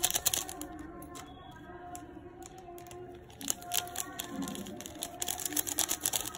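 Foil seasoning sachet crinkling and rattling as it is shaken and tapped to pour the masala powder out, in quick clusters of crackles at the start and again near the end.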